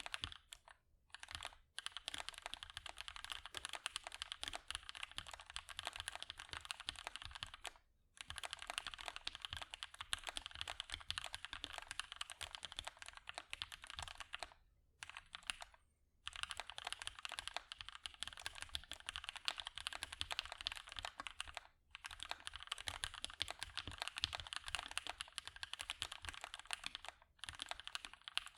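Fast, continuous typing on a custom mechanical keyboard with lubed and filmed Gateron Hippo switches on a POM plate under GMK keycaps: dense key clacks. The typing breaks off briefly several times, for instance about 8 s in and around 15 to 16 s.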